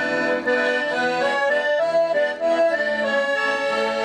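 Piano accordion playing a lively folk melody alone, one note after another, as the introduction to a song before the voices come in.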